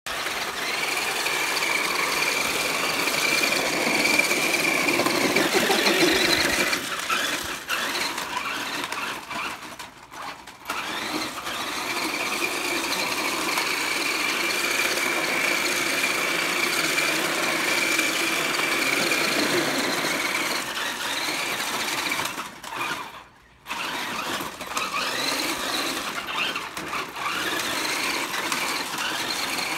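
Small electric RC 4x4 truck's motor and gears whining steadily as it drives. The whine drops almost away twice, about ten seconds in and again near 23 seconds, as the throttle is let off.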